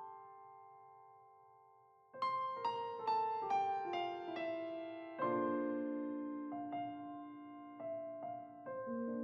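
Solo piano background music: a held chord fading away, then a quick run of notes stepping down about two seconds in, followed by slower single notes and chords.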